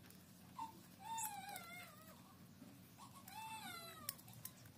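A cat meowing: two drawn-out meows that rise and fall in pitch, about two seconds apart, with faint clicks of a utility knife shaving popsicle-stick wood.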